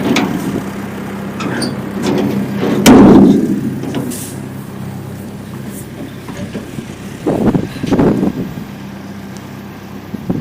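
A vehicle engine running steadily, with a loud clunk about three seconds in and two more knocks later. The hum fades after about six seconds.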